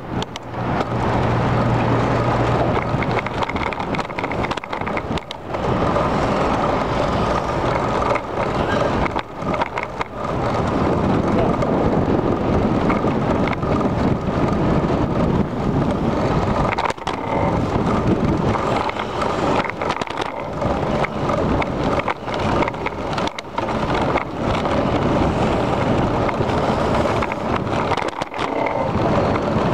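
Bicycle rolling along a paved path: continuous rumble and rattle with frequent knocks over bumps in the surface. A low hum runs through the first three seconds.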